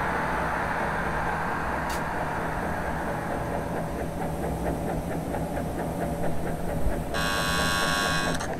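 Copy lathe running: a steady machine hum from its drive and gear train, with regular clicking about four times a second starting partway through. Near the end a loud high-pitched whine sounds for about a second and a half.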